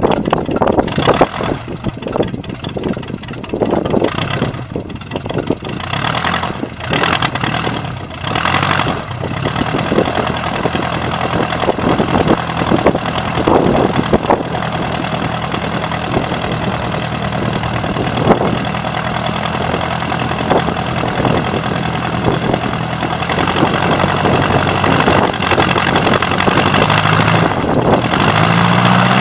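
Bensen B8M gyrocopter's engine and pusher propeller on the ground, running unevenly for the first several seconds and then settling into a steady idle. The revs rise near the end.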